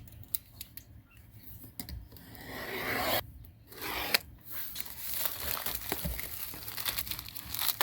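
Packaging being cut and torn open, with scraping, rubbing and scattered clicks. There are louder stretches of tearing about two to three seconds in and again around four seconds, then steady rustling.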